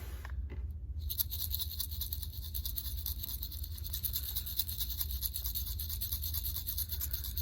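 Sequins sliding and rattling inside a closed mystery tube as it is moved: a dense, fine patter of many tiny clicks that starts about a second in and runs on steadily.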